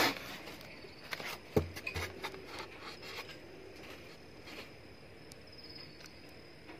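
Hands handling a new electric water pump in its styrofoam packing: scattered taps, clicks and rubs, busiest in the first few seconds, with a dull thud about a second and a half in. A faint steady high tone sounds behind it.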